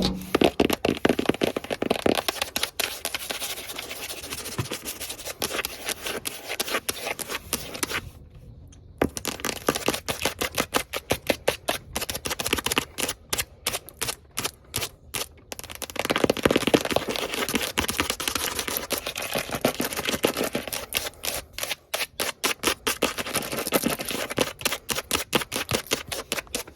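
Fast, aggressive long-fingernail tapping and scratching close to the microphone, in quick runs of crisp taps, with a short pause about eight seconds in.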